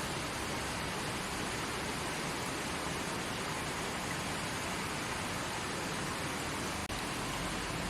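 Mountain river flowing over rocks: a steady, even rush of water, with a momentary break about seven seconds in.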